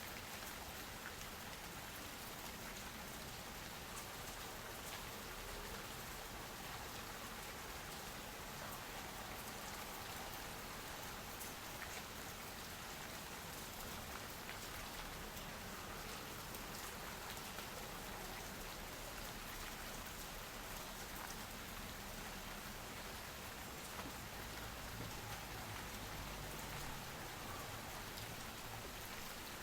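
Steady soft rain falling, with the patter of individual drops on surfaces.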